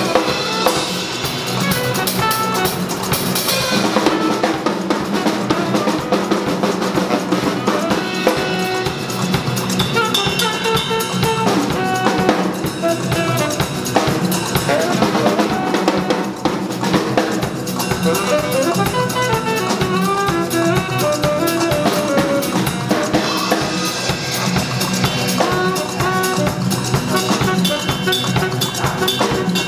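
A saxophone and a drum kit playing live jazz together. Busy, driving drumming on snare, bass drum and cymbals runs under a saxophone melody.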